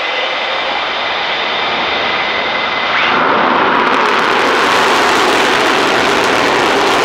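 F-15E Strike Eagle's twin jet engines at high power on the takeoff roll, a steady whine; about three seconds in the sound turns louder and rougher as the afterburners light.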